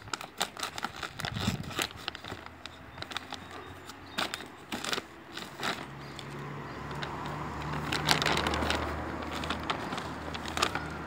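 Large plastic dry dog food bag being cut and torn open, crinkling and crackling in quick irregular clicks. From about six seconds in comes a denser steady rustle, as hands dig into the dry kibble inside the bag.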